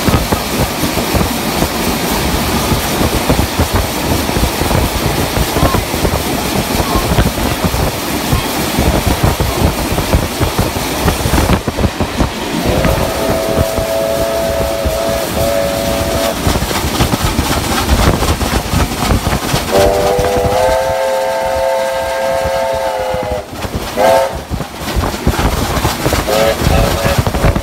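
Steam locomotive 3016 running along the track with a rumbling, clattering noise. In the second half its multi-note chime whistle sounds several times: two short blasts, then a longer, louder blast of about three seconds that rises slightly in pitch as it opens, then a quick toot and a final blast.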